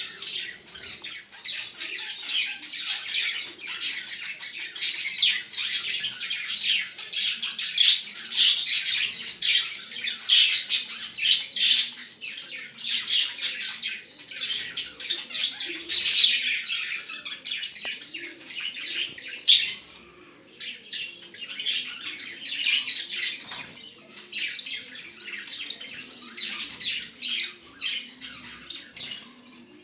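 Bengalese finches (society finches) calling in a cage: a dense, continuous stream of short, high chirps from several birds.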